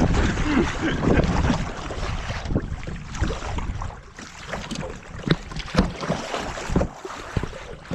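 Kayak paddling: water sloshing around the paddle and hull, with wind noise on the microphone and a few sharp knocks, most in the second half.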